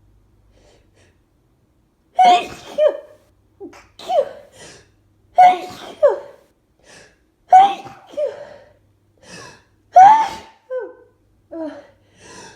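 A person sneezing in a rapid run of loud sneezes, with sharp gasping in-breaths between them, starting about two seconds in: allergy sneezing.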